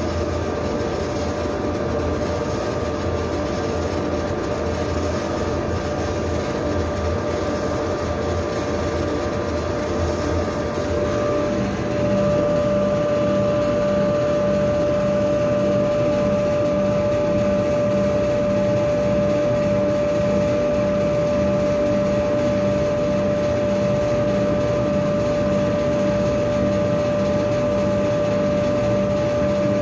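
Laser engraver raster-engraving wood: a steady machine hum of fans and motors, with a regular pulsing as the head sweeps back and forth. About twelve seconds in the sound gets louder and a steady high whine comes in.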